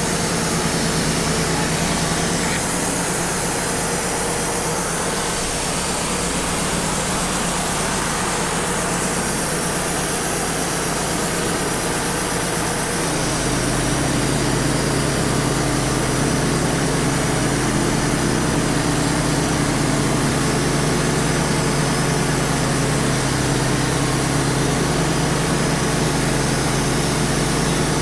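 Wood-Mizer LT35 portable sawmill's engine running steadily under a constant rushing noise. About thirteen seconds in, its hum shifts in pitch and grows a little louder.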